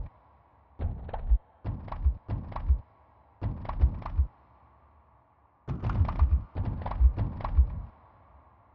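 Sonified earthquake data from a seismic swarm: each recorded tremor triggers a short sample of a sped-up seismic waveform, its pitch marking the quake's depth and its length and loudness marking its magnitude. It is heard as clusters of low rumbling thuds with sharp knocks, in short groups with quiet gaps between them and a longer, denser cluster about six to eight seconds in.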